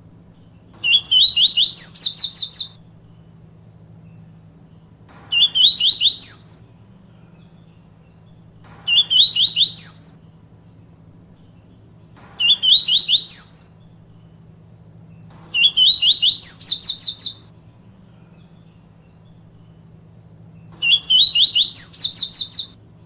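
A papa-capim seedeater singing its 'tui tui viviti' song: six phrases a few seconds apart, each a few short rising notes running into a fast, high trill. A steady low hum sits underneath.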